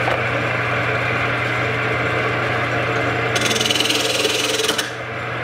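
Rikon 70-100 mini lathe running with a steady motor hum while a turning tool cuts the spinning blank of epoxy-soaked denim micarta. A louder, hissing scrape of the cut comes in about three and a half seconds in and eases off near five seconds.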